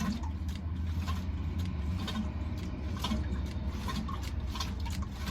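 Oil extraction pump running steadily with a low hum, drawing the last oil out of a MerCruiser 350's sump through the dipstick tube, with scattered clicks and crackles as it starts to sputter and suck air: the sump is nearly empty.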